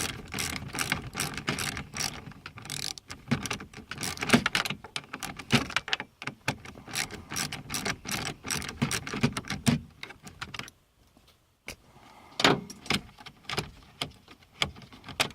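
Hand ratchet with a 7mm socket clicking in quick runs as bolts are backed out, with some metallic rattling of the tool and fittings. The clicking stops briefly about ten seconds in, then resumes.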